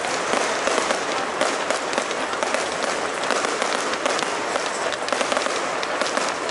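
Fireworks going off in a dense, continuous crackle of many small pops and snaps.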